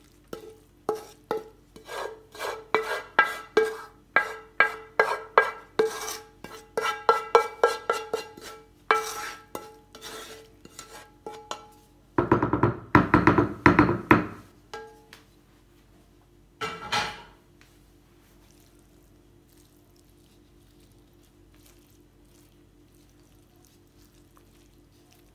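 Wooden spoon knocking and scraping leek filling out of a non-stick frying pan, about two knocks a second, each leaving the pan ringing briefly. A longer, louder bout of scraping comes about halfway through, and one more short one a few seconds later.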